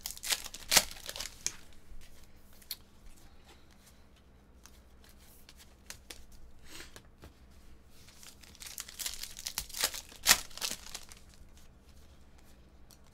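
Trading-card pack wrapper being torn open and crinkled, with the cards handled in between. The crackling comes in two spells, right at the start and again about nine to ten seconds in, with only faint rustling between.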